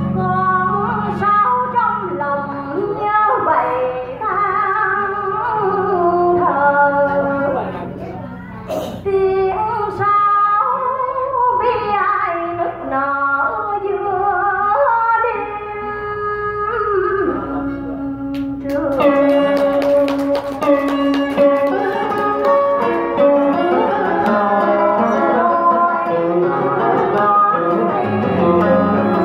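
A woman singing a slow song into a microphone over plucked-string accompaniment.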